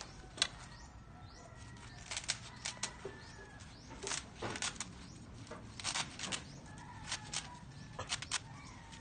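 Fresh papaya leaves being torn into pieces: a string of short, crisp rips and rustles coming in clusters.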